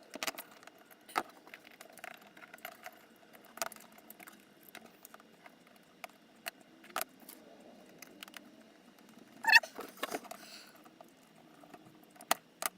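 Small parts and bolts of a robot arm kit being handled and fitted together: scattered light clicks and clinks, with a louder clatter about nine and a half seconds in.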